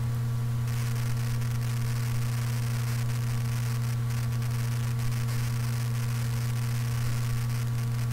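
Steady electrical mains hum from a microphone recording with its noise suppression switched off, over a constant background hiss with faint crackle.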